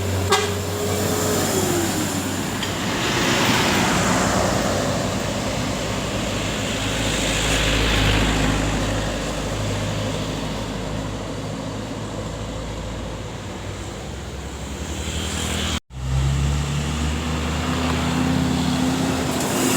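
Big intercity buses driving past one after another, their diesel engines running and their road noise swelling and fading as each goes by. The sound cuts out abruptly about sixteen seconds in, then an engine is heard running close by.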